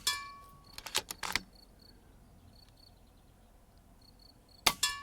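FX Impact M3 PCP air rifle firing twice, once at the start and once near the end, each a sharp crack with a short ringing tail. About a second in, a few quick clicks from the rifle's side-lever cycling the next pellet.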